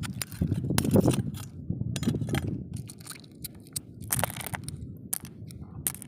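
Irregular clicks, scrapes and crunches of a knife blade and fingers against rough coral rock and sea snail shells as the snails are prised off, the louder clicks bunched in the first half.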